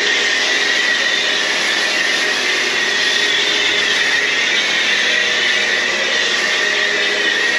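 Kärcher K2 electric pressure washer running steadily with the trigger held, its pump motor giving a steady high whine under the hiss of a foam cannon spraying snow foam.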